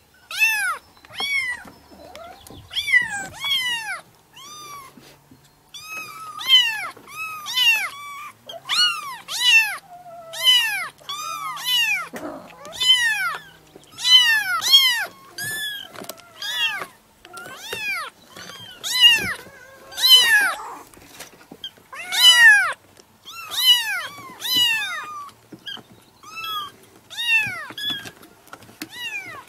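Kittens mewing over and over: high-pitched calls that rise and fall in pitch, often two or three close together, with short gaps between.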